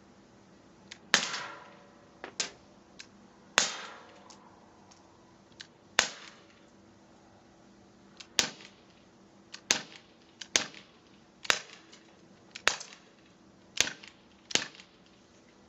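Gamo PT-85 blowback CO2 pellet pistol firing about ten shots, each a sharp crack. The first few shots come about two and a half seconds apart, the later ones quicker, about one a second, with fainter clicks in between.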